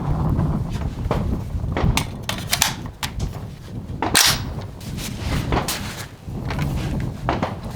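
Sharp, irregular clicks and cracks from an H&R M16A1 rifle, the loudest about four seconds in, over a steady low rumble.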